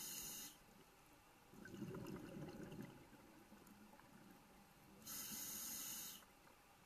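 Scuba diver breathing through a regulator underwater. A hissing inhalation opens it, exhaled bubbles rumble and gurgle about two seconds in, and a second inhalation hiss comes about five seconds in.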